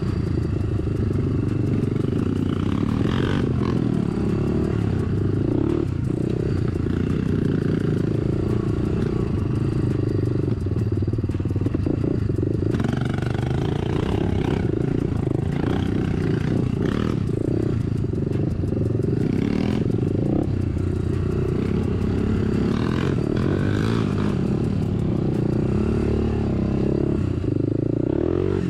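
Honda dirt bike engine running under changing throttle while riding a rough, rocky trail, with clattering and scraping knocks from the bike over the terrain.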